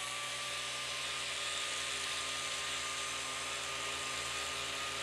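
A small engine running steadily, with a thin whine that slowly rises a little in pitch.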